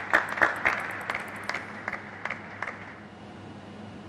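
Sparse applause from a few people after a table tennis point, irregular hand claps that thin out and die away after about three seconds.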